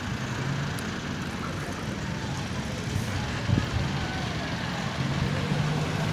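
A motor vehicle engine running at a steady pitch while riding through street traffic, with wind on the microphone. There is a single thump about three and a half seconds in.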